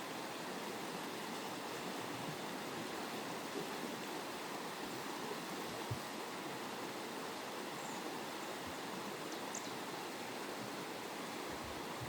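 Steady rushing of flowing water, like a stream, with a single soft knock about six seconds in.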